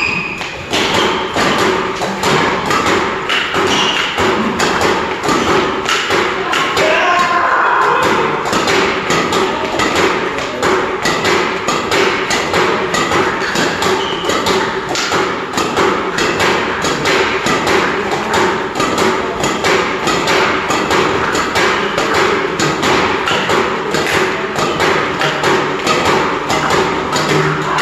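A badminton racket striking shuttlecocks in a rapid, even run of sharp hits, several a second, as a shuttlecock launcher machine fires shuttle after shuttle at the defending player.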